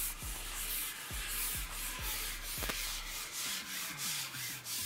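A carbon fishing pole being pushed out over a pole roller, with a rubbing swish about twice a second as each length slides through.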